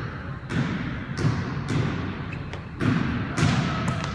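A ball thumping against a hard floor or wall about six times at uneven intervals, each hit echoing briefly as in a large hall.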